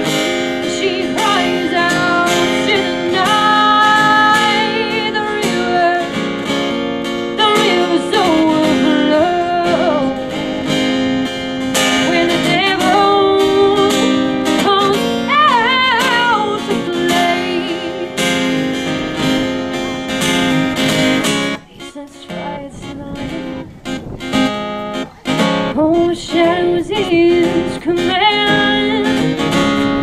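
A woman singing with a strummed acoustic guitar, the voice wavering in held notes; the music drops briefly about two-thirds of the way through, then carries on.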